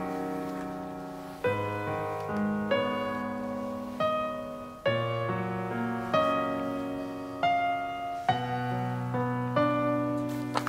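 Slow background piano music: chords struck about every one to one and a half seconds, each left to ring and fade.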